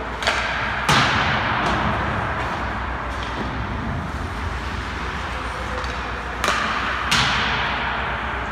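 Hockey pucks being shot in goalie drills: two pairs of sharp cracks, a second apart at the start and again about six seconds in, the second of each pair the loudest, each ringing on in the rink's long echo.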